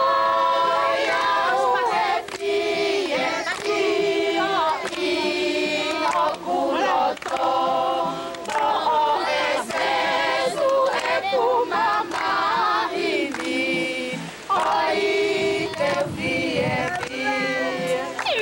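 A group of women and children singing a song together, phrase by phrase with short breaths between lines.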